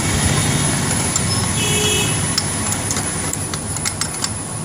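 A motor vehicle rumbles past close by, loudest in the first two seconds, with a brief horn toot about two seconds in. Scattered light clicks follow.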